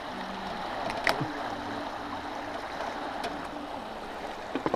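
Steady rush of river current flowing past the boat and a rock, with a single sharp click about a second in.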